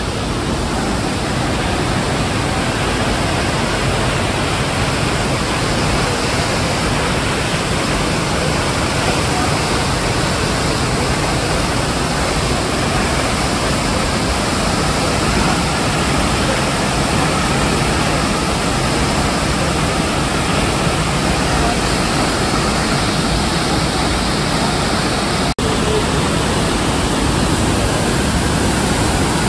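Large waterfall plunging into a pool: a loud, steady rush of falling water, broken once by a momentary dropout near the end.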